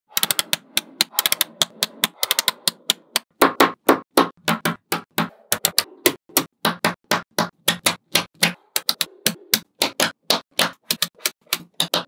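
Magnetic balls clicking as clusters of them snap onto one another, a quick run of sharp clicks about four a second, bunched more closely in the first three seconds.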